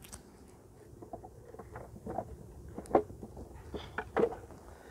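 Light wooden knocks and clicks, several spread irregularly with the sharpest about three seconds in, from beehive boxes and frames being handled.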